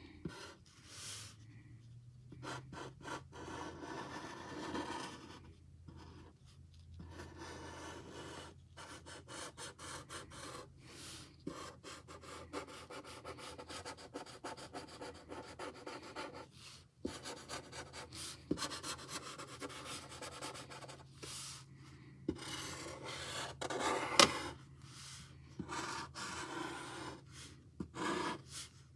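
Sharpie permanent marker scratching across paper in many short, quick, irregular strokes, drawing in fur detail, over a faint steady low hum.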